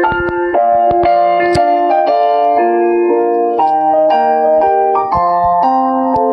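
Phone ringtone: a keyboard-style melody played in chords, the notes changing about twice a second.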